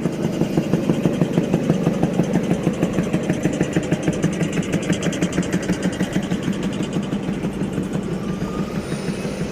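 A vehicle engine idling close by, a steady rapid pulse of about four to five beats a second that runs on without a change.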